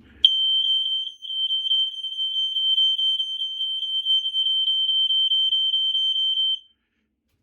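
BRK 1200 smoke alarm's horn sounding on test: one loud, steady high-pitched tone with a fast flutter, starting just after the start and cutting off suddenly about six and a half seconds in.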